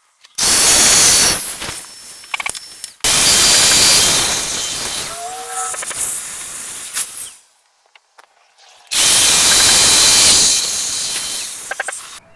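Domino joiner cutting mortises: three runs of the motor, each starting suddenly at full loudness and trailing off over a couple of seconds, with short quiet gaps between them.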